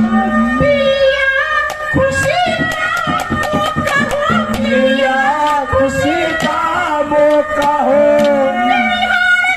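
A man singing a Haryanvi ragni into a microphone through a PA, holding and bending long notes, over steady held instrument tones and quick drum beats.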